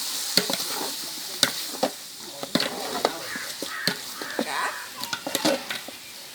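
A ladle stirring a large cooking pot, knocking and scraping against its sides at irregular moments, over a steady sizzle of frying.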